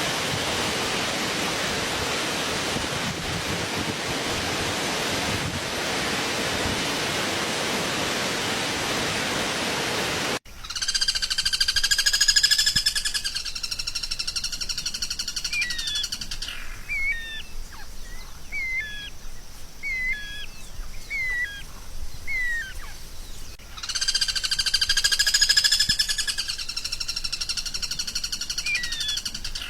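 A steady hiss for about the first ten seconds, then, after an abrupt cut, a songbird's training recording: a long buzzing trill alternating with runs of short, hooked chirps at about one a second, the trill returning near the end.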